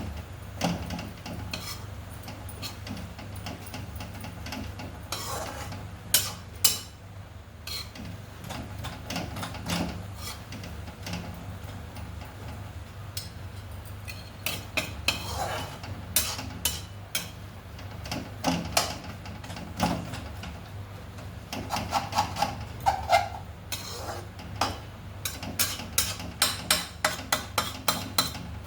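Kitchen utensils clinking, knocking and scraping against cookware over a steady low hum. Near the end they become a quick, regular run of sharp taps, about three a second.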